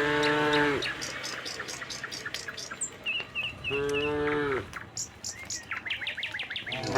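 Cattle mooing twice, once at the start and again about four seconds in, each low call sliding down in pitch at its end, with small birds chirping in between.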